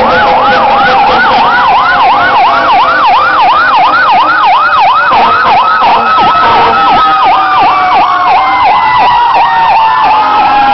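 Several fire engine sirens sounding at once as the trucks pass: one in a fast yelp of about three sweeps a second, the others in slow wails. The yelp weakens about halfway through, and a wail falls in pitch near the end.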